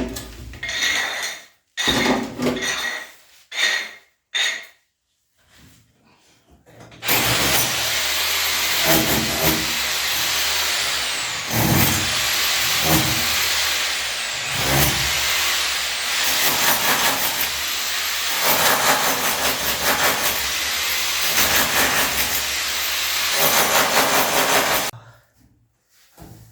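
A handheld power tool running under load for about eighteen seconds, starting about seven seconds in and stopping abruptly, its high whine dipping and recovering as it bites into the work. Before it start, a few short knocks and sounds.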